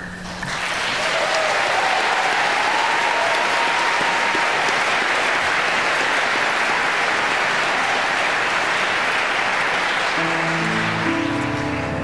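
Large audience applauding steadily. Near the end, instrumental music starts up under the applause.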